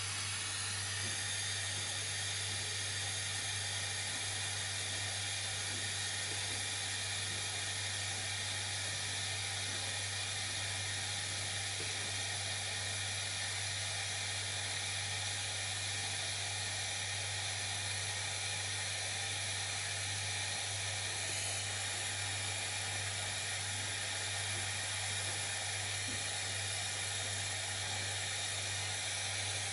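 Steady hiss of a BST-100 butane gas soldering iron burning with its tip lit, over a low steady hum.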